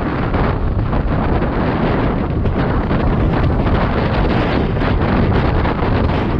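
Wind rushing over the microphone of a camera on a road bike riding at about 44 km/h: a steady, loud, gusty roar.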